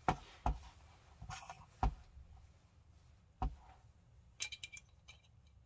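Handling noise from a Wolverine MTW airsoft rifle's lower receiver and its trigger board as the board is worked into place: a handful of separate light knocks, then a quick run of small clicks near the end.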